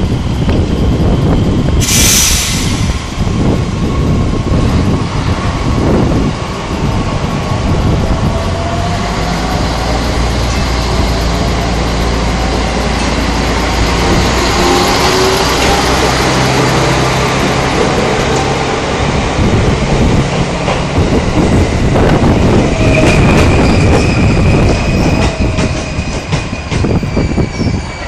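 Miki 300 diesel railcar pulling out of the station: a short hiss about two seconds in, then the diesel engine working under load, its pitch stepping up as the car gathers speed, with wheels clacking over the rail joints as it passes and a brief high wheel squeal later on.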